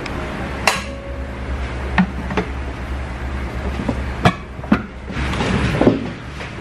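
Kitchen clatter: about six sharp knocks and clinks of a stainless steel bowl, utensils and an electric rice cooker's lid as rice is scooped out, over a steady low hum.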